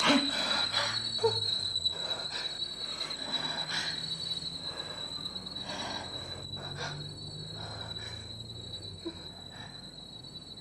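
A steady high-pitched tone, wavering slightly, with a fainter tone above it, over a low hum that swells in the middle and then fades. Soft scattered breath-like noises come through, and the whole slowly grows quieter.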